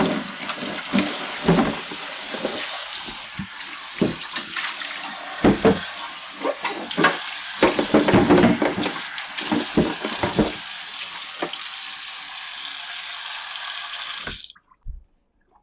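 Tap water running into a sink, with short clattering knocks of things being handled in it; it stops suddenly near the end.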